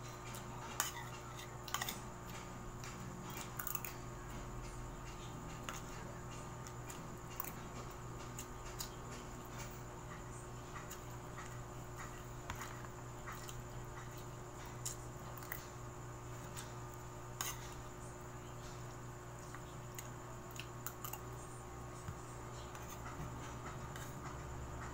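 Metal spoon and fork clinking and scraping on a ceramic plate while eating, with sharp irregular clicks, the loudest near the start, over a steady low hum.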